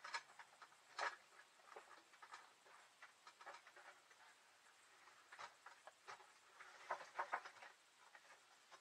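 Scattered light clicks, ticks and scrapes of hands working the plastic retaining clips on an RV window blind's rail, trying to release the blind from a clip that won't let go. The sharpest clicks come about a second in and in a quick cluster around seven seconds in.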